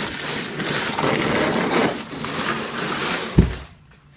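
Cardboard packing being pulled out and crumpled, a loud continuous rustling crackle that ends with a thump about three and a half seconds in.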